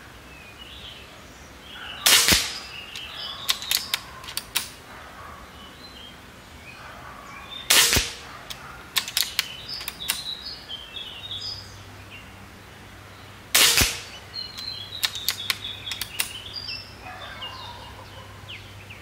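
Seneca Eagle Claw .25-calibre pre-charged pneumatic air rifle set below full power, firing three shots about six seconds apart. Each shot is followed by a few lighter clicks. Birds chirp in the background.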